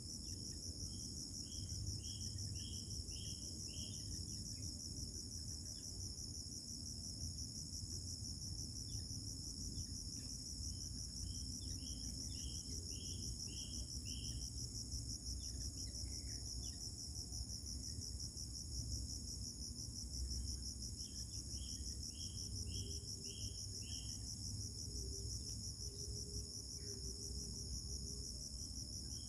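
A steady, high insect trill with a fine pulse, like crickets, over a low background rumble. Three times, a run of about seven quick, clipped chirps sounds, each run lasting a few seconds.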